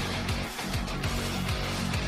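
Background rock music with strummed electric guitar and a steady drum beat.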